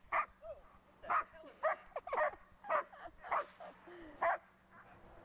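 German Shepherd barking in short, sharp yaps, about seven spaced half a second to a second apart, with whines between them: a dog eager for the frisbee to be thrown again.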